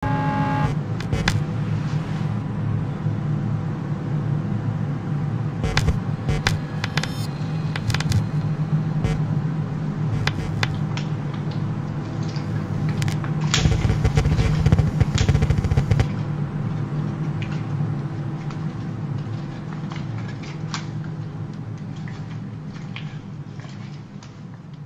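Ambient sound-design drone: a low, steady hum with faint higher tones held over it and scattered crackles and clicks. A rougher rumble swells for a couple of seconds just past the middle, then the whole drone fades out slowly toward the end.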